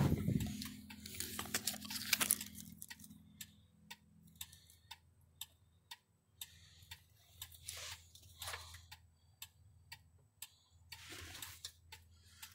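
Even mechanical ticking, about two to three clicks a second, over a faint low hum, with a spell of rustling a little before the end.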